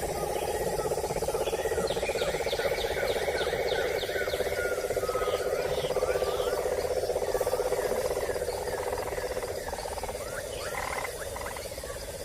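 Tropical forest wildlife chorus: a steady, finely pulsing animal drone, with birds calling in quick runs of repeated chirps and short whistled glides over it.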